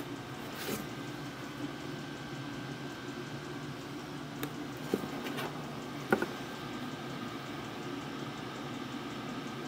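A handful of light clicks and taps from a steel rule and pen handled on a sheet of gasket jointing material on a wooden bench, the sharpest about six seconds in, over a steady background hum.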